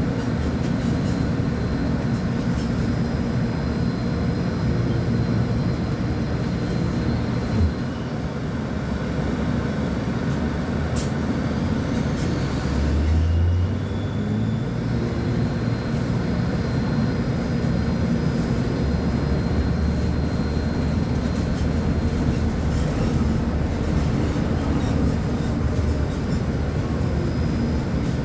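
Volvo B10M articulated bus's mid-mounted six-cylinder diesel engine running steadily as the bus drives. There is a brief knock about 8 seconds in and a louder low swell of the engine around 13 seconds.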